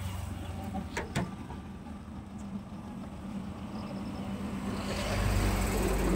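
Road vehicle on the move: steady low engine and road hum, with two sharp clicks about a second in and the noise swelling near the end.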